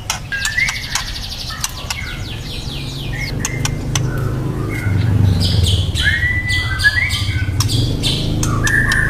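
Juvenile white-rumped shama singing: short whistled notes mixed with rapid chattering trills and sharp clicks, over a steady low hum that grows louder about three seconds in.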